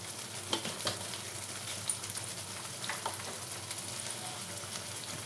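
Thick spiced tomato-onion masala paste sizzling gently in a nonstick frying pan on a gas flame, with a few faint clicks from the spatula in the pan.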